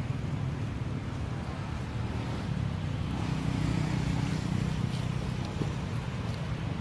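Steady low rumble of outdoor background noise, with a few faint ticks near the end.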